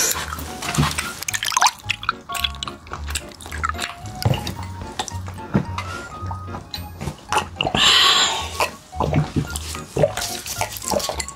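Close-up mukbang eating sounds: wet chewing and slurping of spicy tteokbokki, with many small clicks and a louder hissing burst about eight seconds in, over background music with a steady low beat.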